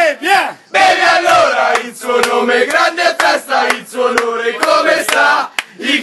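A group of men chanting and shouting together in a rowdy drinking chant, cheering on one of them as he drinks, with a short break about half a second in and another near the end.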